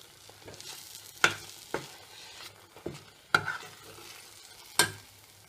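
Metal spoon stirring a thick mango paste in a stainless steel pot, knocking against the pot about five times, over a faint sizzle of the paste sautéing in oil until the oil separates.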